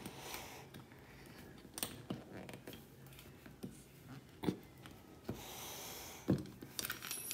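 A few faint, scattered clicks and taps of a small Allen wrench in the set screw under a chrome towel ring's wall mount as it is twisted to tighten the loose ring, with a soft rustle of about a second shortly before the last click.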